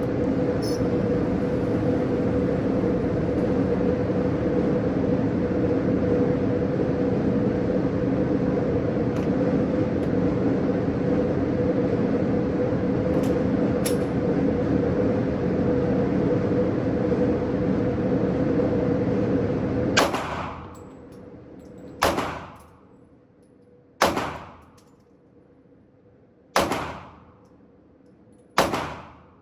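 Five shots from a Glock 43X 9mm pistol, fired one at a time about two seconds apart, starting about two-thirds of the way in. Before them there is a long stretch of steady noise with a hum.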